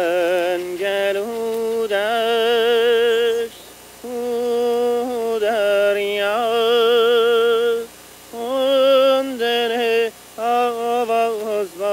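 A lone voice singing a slow, unaccompanied song in long held notes with a wavering vibrato, in phrases broken by short pauses about every three to four seconds.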